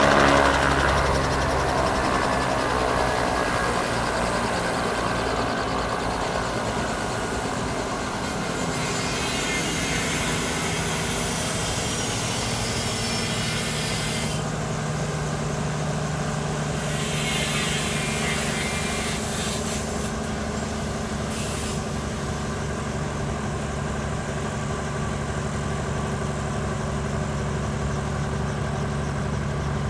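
Robinson R44 Raven helicopter running steadily, its six-cylinder Lycoming piston engine giving an even drone. It eases off a little over the first few seconds, then holds.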